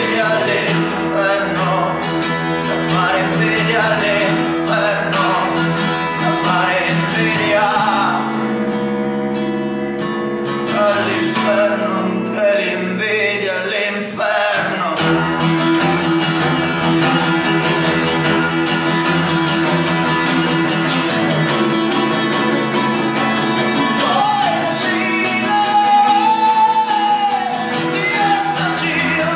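Acoustic guitar strummed steadily while a cello bows a melody over it.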